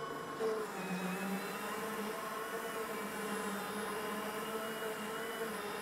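Allett Stirling battery-powered cylinder mower with a 10-blade cutting cylinder running and cutting, scalping the lawn at 3 mm: a steady whir from the motor and spinning reel.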